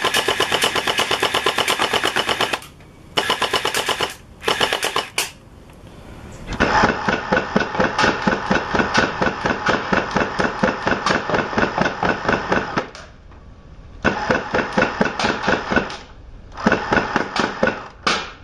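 Electric gel-ball blaster firing on full auto: a rapid, even rattle of shots in about six bursts, the longest lasting around six seconds in the middle.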